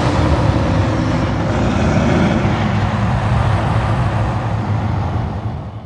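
A bear's long, deep roar, held steady and then dying away near the end.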